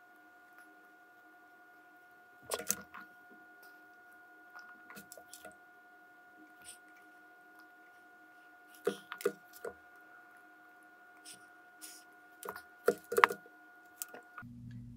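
Scattered light clicks and taps of a soldering iron tip, solder wire and a small circuit board being handled while header pins are soldered, with a tight cluster of sharper taps near the end. A faint steady hum runs under them and cuts off suddenly just before the end.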